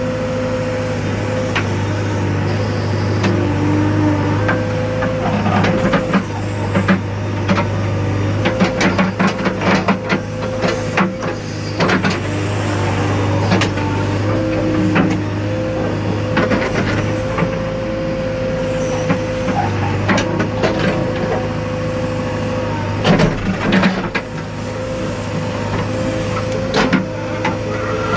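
JCB backhoe loader's diesel engine running steadily under load, with a steady whine over it and repeated knocks and clanks of the digging work, thickest in the middle stretch and again about two-thirds of the way through.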